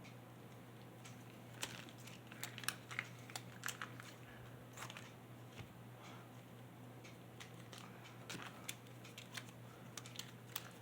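Faint crinkling, tearing and small clicks of plastic ketchup packets being torn open and squeezed out, in scattered bunches with a lull in the middle.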